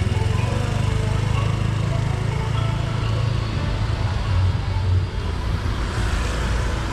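A motor vehicle's engine running close by on a busy street, a steady low rumble that swells about four and a half seconds in, over a faint murmur of voices.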